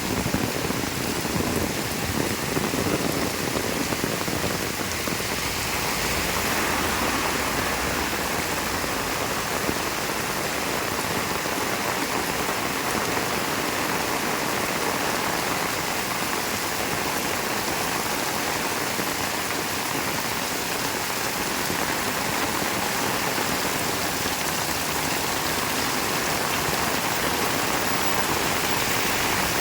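Heavy rain falling steadily as a dense hiss, turning brighter and sharper about six seconds in.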